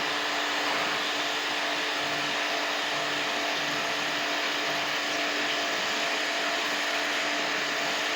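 Electric jet pump washer running steadily with the hiss of its water spray, used to wash down a window air conditioner.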